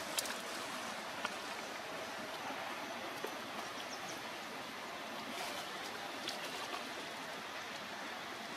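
Steady outdoor background hiss with a few faint clicks scattered through it.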